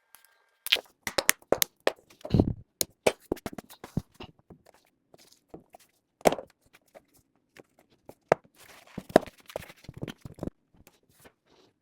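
A run of irregular clicks and knocks with a few heavier thuds, with no steady rhythm.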